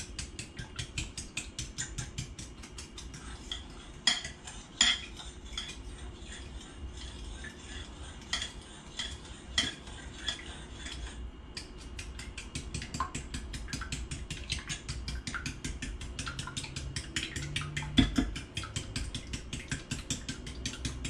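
A fork stirring eggs, milk and sugar in a full glass bowl, its tines clinking rapidly and steadily against the glass. There is a short pause about eleven seconds in and one louder knock near eighteen seconds.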